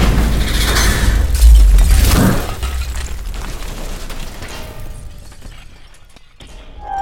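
Car crash: heavy impacts over a deep rumble, the loudest hit about a second and a half in. It then dies away into scattered small clicks of settling debris.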